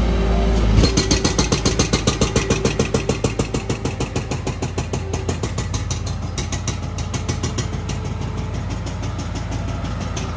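Bobcat skid-steer loader's diesel engine running as the machine drives over loose dirt. About a second in, a fast, even clatter starts, at about four pulses a second, and fades over the next several seconds while the engine drone continues.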